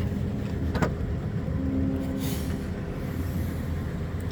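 Steady low hum of an idling vehicle engine, with a single sharp click about a second in.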